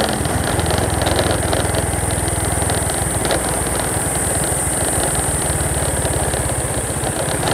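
Vehicle engine running steadily while under way on the road, picking up slightly in the first second.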